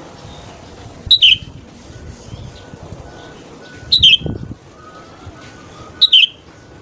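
Red-whiskered bulbul calling three times, about two and a half seconds apart. Each call is a short, sharp, falling whistle.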